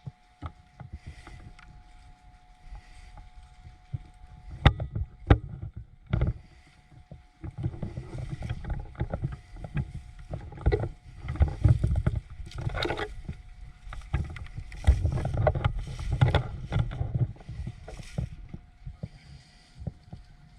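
Irregular rustling and thumping handling noise, with three sharp clicks about five seconds in and a faint steady tone underneath.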